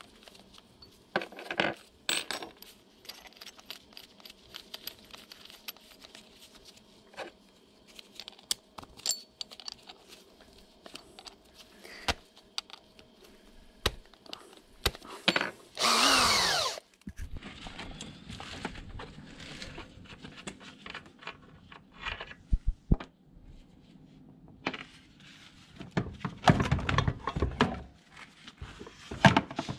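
Metal tools clinking and knocking during scooter brake work, with a brief burst from a power drill about halfway through whose pitch falls as it stops. A second, longer burst of tool noise comes near the end.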